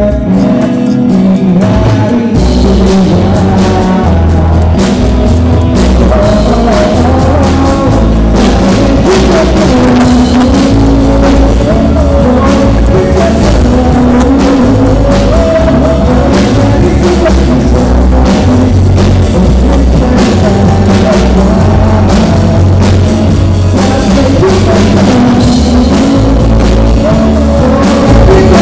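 Live rock band playing electric guitars and a drum kit, with a singer. The drums and the full band come in about two seconds in.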